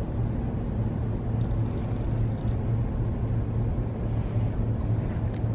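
Steady low droning hum with a faint even background hiss, and a couple of faint ticks.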